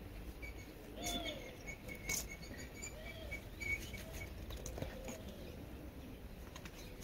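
Faint outdoor background with a small bird chirping over and over and a few soft clicks.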